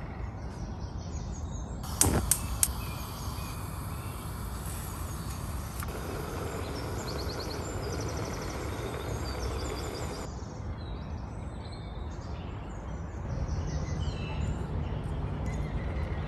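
A few clinks about two seconds in from the glass lid on a steel cooking pot, then the steady hiss of a pot of dal boiling, with faint bird chirps.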